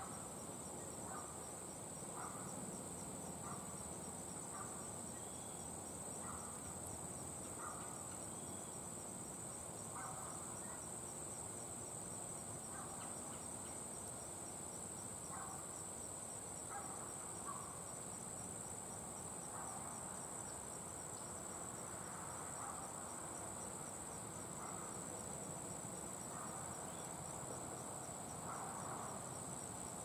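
Insects trilling steadily on one high pitch, with faint short bird chirps scattered through.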